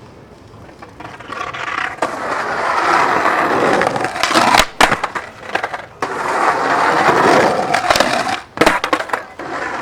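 Skateboard wheels rolling, growing louder as the board approaches, with sharp clacks of the board about halfway through and again near the end, then more rolling.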